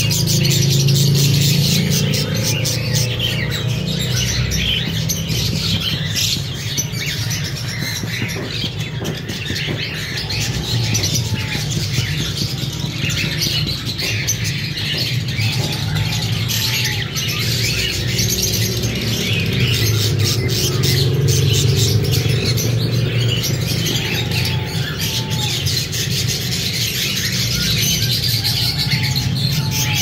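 Green-cheeked conures chattering and squawking non-stop, a dense run of scratchy calls with a few short whistled notes mixed in, over a steady low hum.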